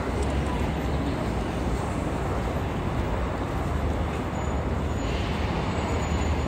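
City street traffic: a steady rumble of passing vehicles.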